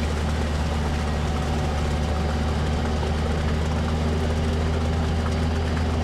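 All-terrain vehicle's engine running steadily, a low, even drone.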